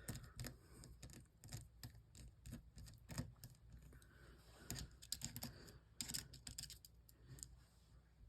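Faint, irregular small clicks and taps of a tool against the insides of an opened Samsung Galaxy S9 as it is taken apart, with a few louder clicks about three, five and six seconds in.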